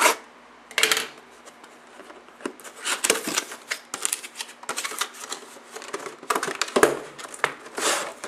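Cardboard retail box being opened and handled by hand: irregular clusters of scrapes, rustles and light taps as the flap is pulled open and the inner packaging is lifted out.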